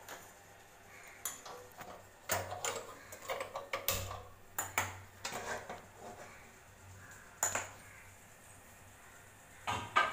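Aluminium pressure cooker and metal cookware being handled on the stove: a string of sharp metal clinks and knocks, then a couple more near the end.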